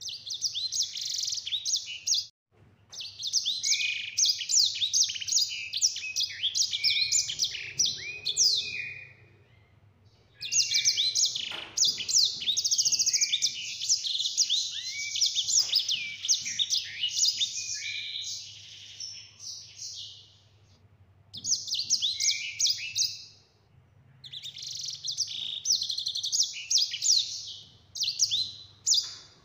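A sanger, a canary-type songbird, singing a long, fast rolling song of rapid high chirps, trills and whistles. The song comes in several long phrases broken by short pauses.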